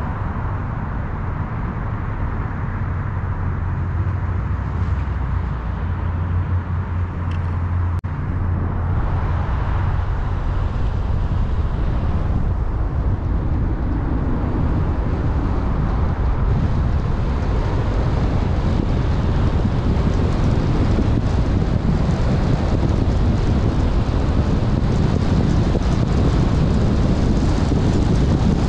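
Car driving on a road: a low, steady engine drone with tyre and road noise. From about a third of the way in, the road and wind noise grows slowly louder.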